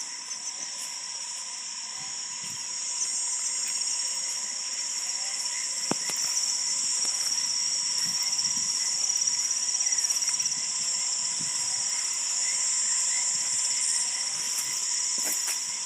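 Insects chirring in a continuous high-pitched trill, growing louder about three seconds in, with a steady lower insect tone and faint repeated short chirps beneath. A single sharp click comes about six seconds in.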